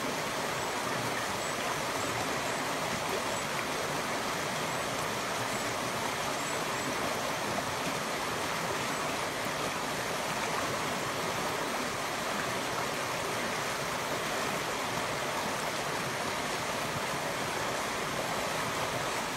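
The Mattock River, a small river, running steadily over rocks in a shallow stretch: an even, continuous rush of flowing water.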